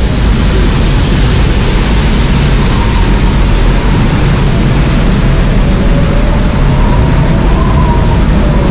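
A steady rush of water and a low rumble from a log flume ride's boat travelling along its water channel, with a strong hiss. Faint wavering tones come in from about three seconds in.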